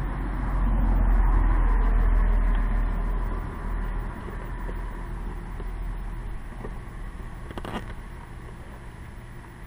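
Low rumble of a passing vehicle, swelling over the first second and fading away by about four seconds in, followed by a single short click near the end.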